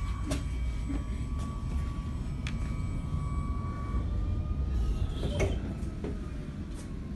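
Tram running along street rails, heard from inside the car: a steady low rumble with a thin steady whine that shifts slightly in pitch about four seconds in, and a few sharp clicks.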